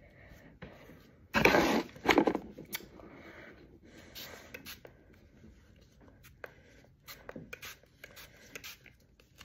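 A plastic spray bottle handled against hair, with rubbing and scraping. Two short, louder bursts of noise come about a second and a half and two seconds in, followed by light clicks and rustles.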